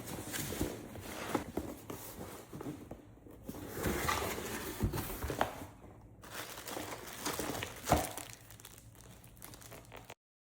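Packaging crinkling and rustling as it is handled and torn open, with scattered clicks and knocks; the sound cuts off abruptly near the end.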